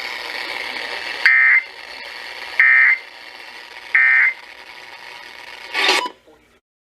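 Emergency Alert System end-of-message signal on a weather radio: three short, identical bursts of the buzzy SAME data tone, about a second and a half apart, marking the end of the warning over radio hiss. A brief crackle follows near the end as the signal cuts off.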